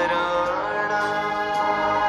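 Background music: a slow, chant-like devotional piece with long held notes.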